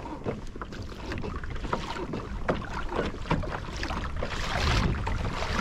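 Small waves slapping and lapping against a plastic kayak hull in irregular little knocks, with wind buffeting the microphone; the wash of water and wind grows stronger in the second half.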